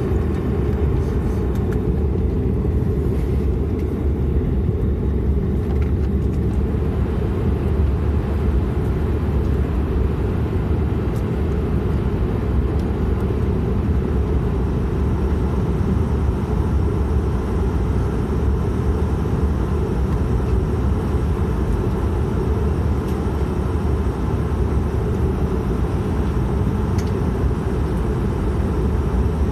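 Cabin sound of a De Havilland Canada Dash 8-400 taxiing, its Pratt & Whitney Canada PW150A turboprop engines and propellers running at low taxi power: a steady, low-pitched drone.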